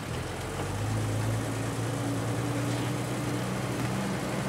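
Truck engine running steadily with a low hum as the vehicle drives off.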